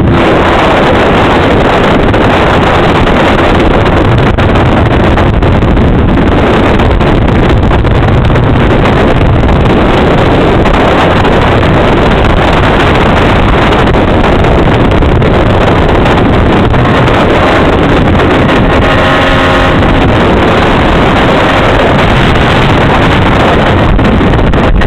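MZ TS 125's single-cylinder two-stroke engine running at road speed, heavily masked by loud, steady wind rush on the microphone. For a second or two about three-quarters of the way in, the engine note comes through more clearly.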